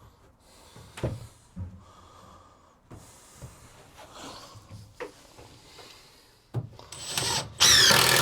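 Timber being handled and set in place, with a few light knocks and some rubbing. Near the end a Makita cordless drill starts up loudly and runs steadily, driving in a screw.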